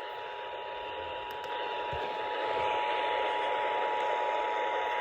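Emergency Alert System attention signal received over the radio: the steady two-tone alarm that heralds an alert message, here a required monthly test, held unbroken over a layer of radio static hiss. The hiss grows a little louder about two seconds in, and there is a brief click at the very start.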